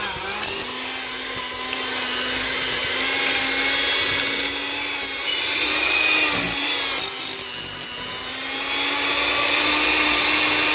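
Electric mixer running steadily while beating cream cheese, its motor pitch creeping up slightly over the seconds with a brief dip about six and a half seconds in.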